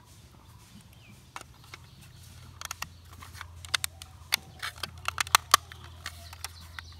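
Hard plastic toy parts clicking and knocking against each other as the upper part of a toy CNG auto rickshaw is fitted onto its body. Short sharp clicks come thick from about two and a half seconds in until near the end.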